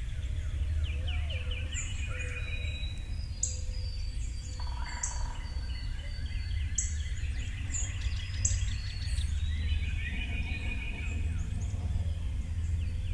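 Birds chirping and calling, many short high chirps and rapid trills, over a steady low rumble.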